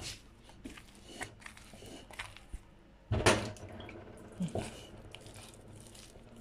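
Wet hand working soft, risen yeast dough in a pot: irregular squelching and sticky smacking, with one louder thud a little past three seconds in.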